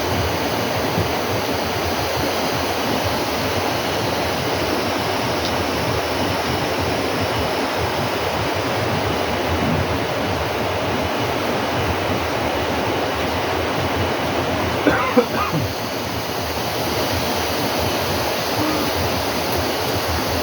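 Steady rushing of running water, with a couple of short, sharp sounds about three-quarters of the way through.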